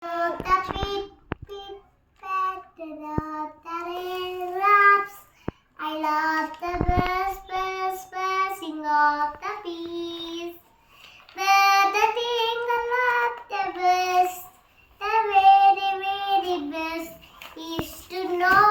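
A child singing a nursery rhyme about raindrops, unaccompanied, in short phrases with brief pauses between them. A few sharp clicks fall between phrases.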